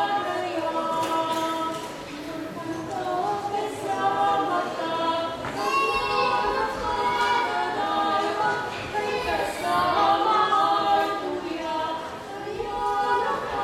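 Two women singing unaccompanied, in harmony, holding long notes.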